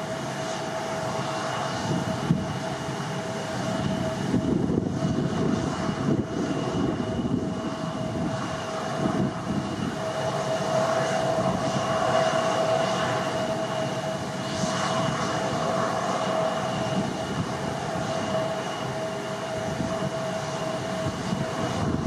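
Boeing 787-8 airliner's turbofan engines at climb power just after takeoff: a steady jet roar with a held whine. Gusts of wind rumble on the microphone.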